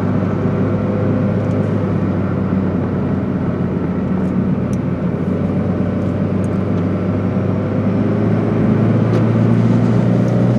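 Car engine and road noise heard from inside the cabin while driving: a steady low drone that rises a little in pitch and loudness about eight seconds in as the car speeds up.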